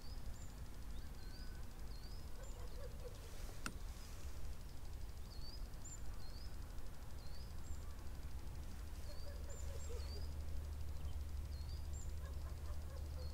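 A small bird repeatedly gives short, high, upward-hooked chirps, about one a second with gaps, over a steady low rumble that swells slightly in the second half. There is one sharp click about four seconds in.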